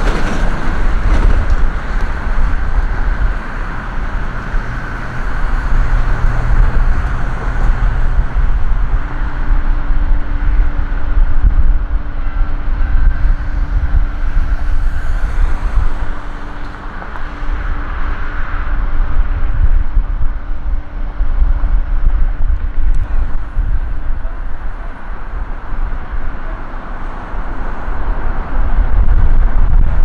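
Road traffic passing on a busy street, a steady noise that swells and eases as vehicles go by. A steady hum runs through the middle for about fifteen seconds.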